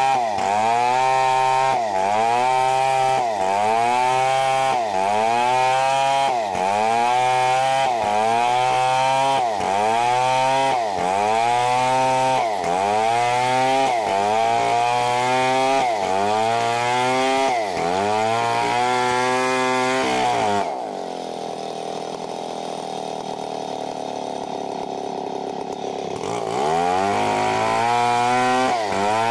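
Stihl 070 two-stroke chainsaw ripping a log lengthwise under full throttle, its engine note sagging and recovering about once a second as the chain bites. About 21 s in it drops back to idle for some five seconds, then revs up again and goes back into the cut.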